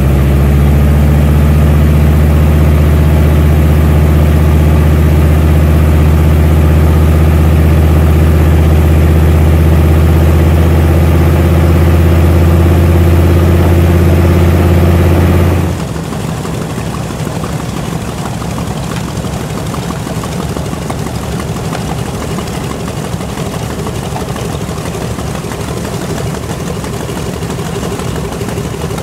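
Curtiss-Wright R-2600 Twin Cyclone 14-cylinder radial engine running steadily and loudly, its propeller turning. About 16 seconds in the sound cuts to a quieter, rougher engine noise from a B-25 Mitchell's R-2600 radials as the bomber taxis.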